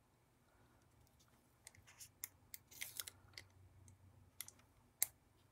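Faint clicks and paper crinkling as small paper pieces and a plastic glue bottle are handled: a cluster of little clicks a couple of seconds in, then one sharper click near the end.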